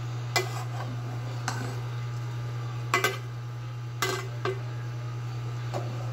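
A metal ladle knocking and scraping against the side of an aluminium cooking pot while stirring cabbage and potatoes in broth. There are about six sharp clinks, the loudest about three and four seconds in, over a steady low hum.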